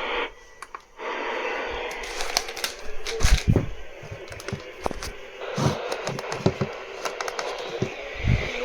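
Radio receiver static: a steady hiss full of crackles and pops from a weak broadcast signal. It sets in about a second in, after a brief dropout.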